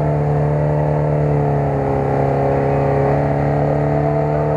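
Lada Niva 4x4 engine held at steady high revs as the car crawls through a deep mud hole, its pitch staying even throughout.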